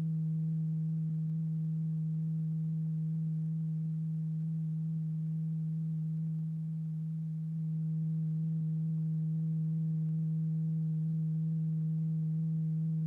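A steady low pure tone with faint overtones: the sine tone that sets the powder-strewn paper diaphragm vibrating, dipping slightly in level about six and a half seconds in.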